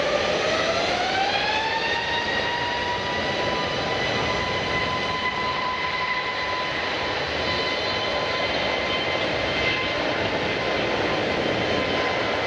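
Jet airliner engines spooling up. A whine rises over the first two seconds and then holds a steady pitch over a constant rush of engine noise.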